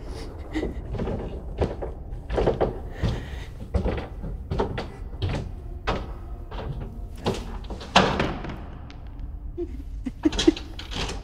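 Irregular heavy thuds and bangs, roughly one to two a second, the loudest about three quarters of the way through. A woman whimpers in fear near the end.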